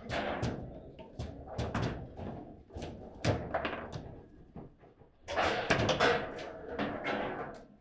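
Table football being played: the ball and rod-mounted player figures knock and clack sharply and irregularly as the ball is shot and blocked, with a quick flurry of hits about five seconds in.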